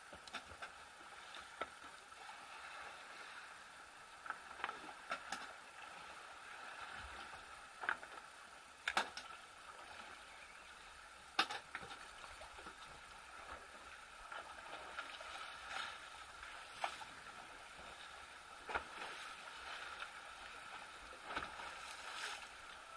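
Faint water lapping against a small wooden fishing boat at sea, with a dozen or so scattered sharp knocks and clicks from handling on board.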